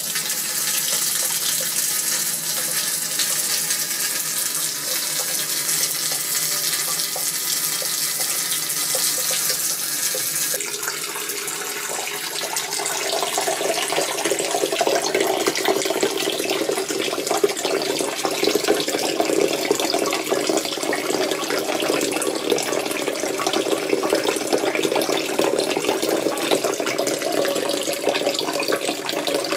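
Water flowing under mains pressure through an under-sink water filter system, a steady rushing hiss. About ten seconds in it turns to a lower, fuller rush.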